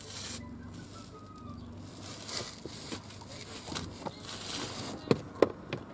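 Rustling and handling noises from working under a car's dashboard, with a few sharp clicks or knocks near the end.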